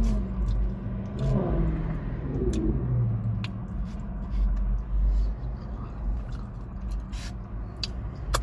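Steady low rumble of a car interior with the engine running, under scattered small clicks and mouth sounds of someone eating, with a brief hummed murmur a second or two in.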